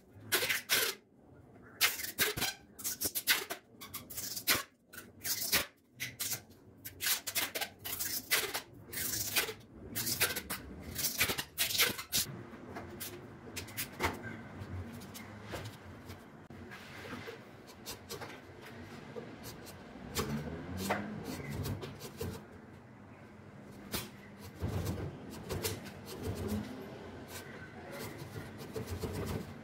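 Hand-work on a wooden cricket bat at a workbench: a quick, irregular run of sharp scraping and crackling strokes for about the first twelve seconds, then softer scattered clicks and rustling handling noises.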